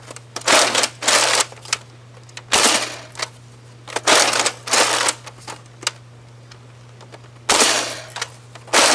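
Nerf Mega Centurion's plastic priming handle being drawn back and pushed forward, a series of loud scraping, clattering strokes about half a second each, several seconds apart in places: the blaster's long priming draw.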